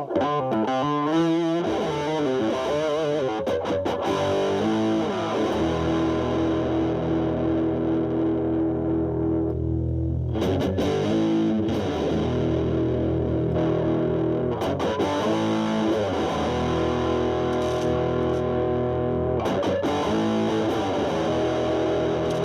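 Fender Stratocaster played through a Boss DS-2 Turbo Distortion pedal in turbo mode, distortion knob at about 3, into a Marshall Valvestate amp on its clean channel. It opens with wavering, bent notes, then settles into long sustained chords, re-struck every few seconds.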